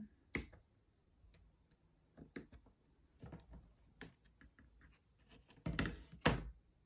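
Small scattered clicks and taps of thin laser-cut plywood parts being pressed out of their sheet with a pointed craft tool, then two louder knocks with scraping near the end as the wooden sheet is handled on the cutting mat.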